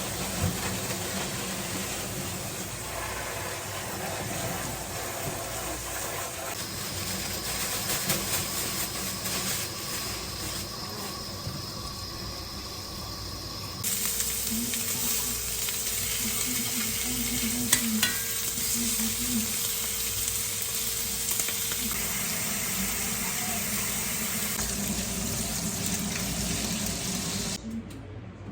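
Meat frying and sizzling steadily in a hot pan, with a sudden change in the sound about halfway through and one sharp click a few seconds later.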